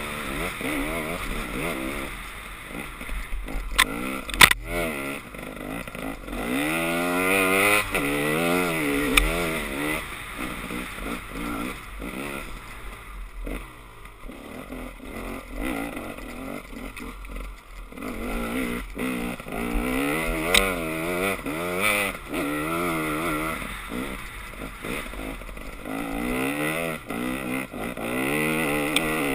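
Dirt bike engine revving up and down as it is ridden hard, its pitch rising and falling again and again through throttle changes and gear shifts. Two sharp knocks stand out about four seconds in.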